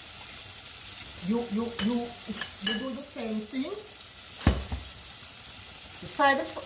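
Hot oil sizzling steadily as chicken pieces deep-fry in a saucepan. Over it come a few short clinks and faint voice sounds about one to three seconds in, and a single sharp knock about four and a half seconds in.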